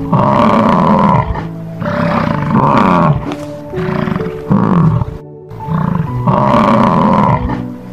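Bison bellowing, a string of deep roaring calls about every second and a half, over background music.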